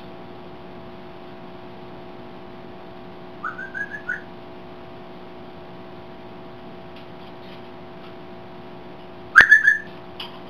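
African grey parrot calling: a quick run of four short whistled notes rising in pitch about three seconds in, then a loud, sharp call of several rapid pulses near the end, over a steady mains hum.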